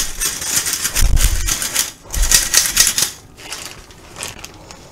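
Hand-operated stainless-steel flour sifter being worked to dust powdered sugar, its mechanism making a rapid clicking rattle with a few dull knocks. The clicking stops about three seconds in.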